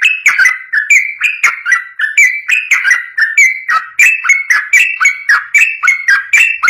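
Yellow-vented bulbul singing a fast, unbroken run of short bubbly notes, several a second, in the long rapid 'ropel' style used for training songbirds.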